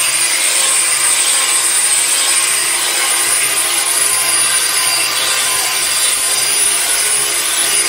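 Electric orbital sander running steadily against an old painted wooden post, grinding the paint off to bare wood.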